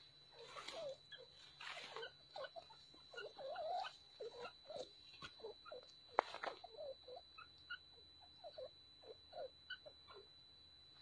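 Two partridges giving soft, short chirping and squeaking calls in quick, irregular succession, with one sharp click about six seconds in.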